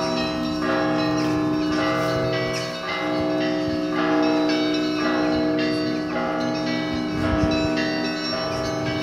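Russian Orthodox monastery bells rung together in a chime (perezvon): several bells are struck again and again in a rhythm, their tones overlapping over the steady hum of a large low bell.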